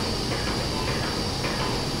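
Steady hiss of operating-room background noise, with a constant high tone running through it.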